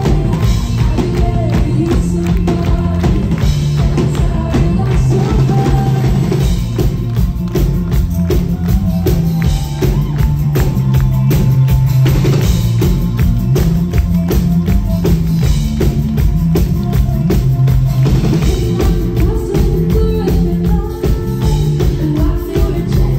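Live pop-rock band playing, with a steady drum-kit beat and bass to the fore and a woman's lead vocal, recorded on a phone from within the crowd; the audience claps along to the beat.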